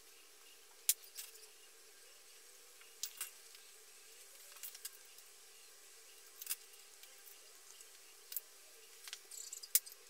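Scattered sharp clicks and light scrapes of steel screwdriver tips and a box-cutter blade prying at the plastic side cover of an electric scooter's hub-motor wheel, about ten clicks at irregular intervals over a faint steady hum.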